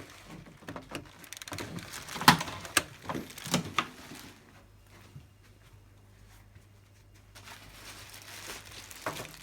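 Clicks, knocks and rustling of a diode laser handpiece and its cable connector being handled and unplugged from the machine, with the loudest knock about two seconds in and quieter handling after about four seconds.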